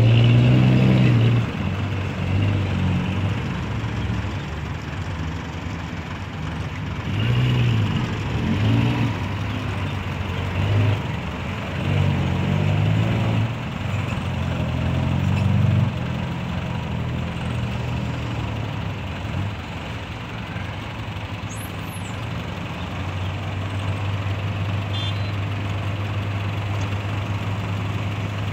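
Diesel engine of an Isuzu six-wheel dump truck, loudest near the start as it pulls away, its speed rising and falling as it manoeuvres over the mud. In the last few seconds it holds a steady speed while the tipper body is raised to dump its load.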